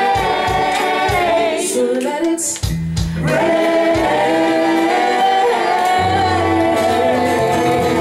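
Live soul band music: a woman singing long held notes over electric bass, guitars and keyboard, with a few percussion hits in the first few seconds.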